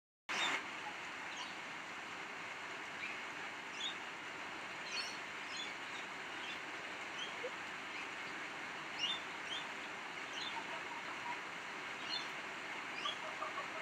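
Outdoor ambience: a steady hiss with short, high bird chirps scattered through it every second or so.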